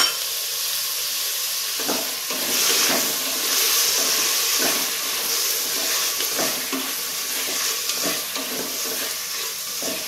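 Sliced onions and freshly added tomato wedges sizzling in a little oil in a pressure cooker pot, the tomatoes frying down to soften. From about two seconds in, a wooden spatula stirs them with repeated scrapes and knocks against the pot.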